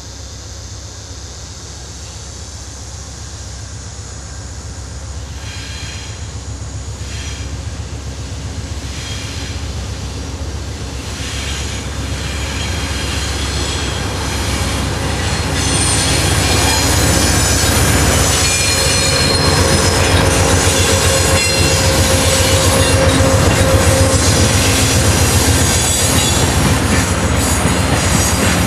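Amtrak passenger train led by a GE Genesis diesel locomotive approaching and passing close by. Engine and wheel noise grow steadily louder over the first half, then hold loud as the coaches roll past, with steady ringing tones over the wheel noise.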